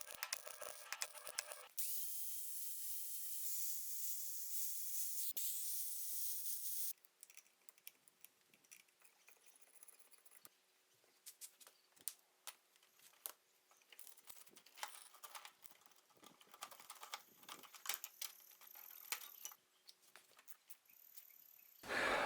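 A steady hiss for about five seconds, then faint scattered clicks and taps.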